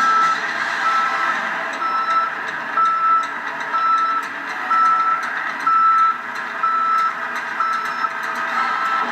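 Construction machine's reversing alarm beeping steadily, about one beep a second, over the machine's running engine.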